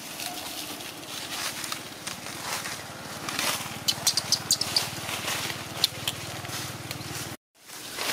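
A small engine running steadily at a low, evenly pulsing hum, with a quick run of sharp clicks about four seconds in. The sound drops out briefly near the end.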